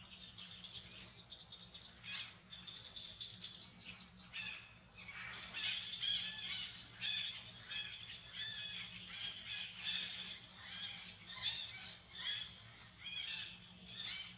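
Young macaques squealing: a run of short, high-pitched calls that grows denser and louder about five seconds in.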